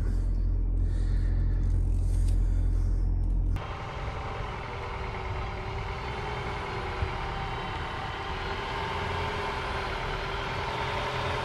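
Low rumble inside the cabin of a Lincoln MKZ Hybrid as it creeps along with its gas engine running. About three and a half seconds in, it gives way abruptly to a quieter, steady hum of the car idling in the open air.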